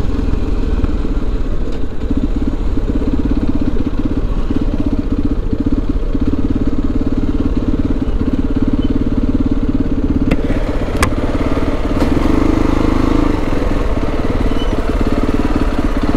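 Motorcycle engine running steadily at low speed, with two short sharp clicks about ten and eleven seconds in.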